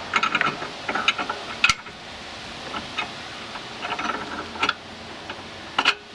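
A wrench tightening a new oxygen sensor into a catalytic converter pipe, making sharp metal clicks in short clusters, with gaps in between, as the sensor is snugged up.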